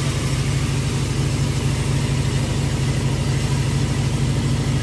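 Heavy truck's diesel engine idling steadily, with an even hiss over it.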